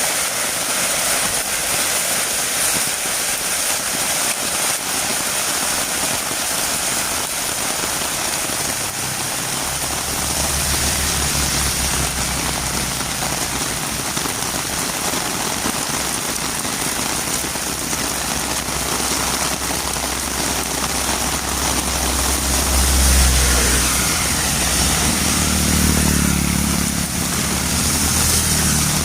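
Heavy rain falling steadily on a road, a constant hiss. From about ten seconds in, a motor vehicle's engine hums low beneath the rain, loudest a little past twenty seconds and shifting in pitch near the end.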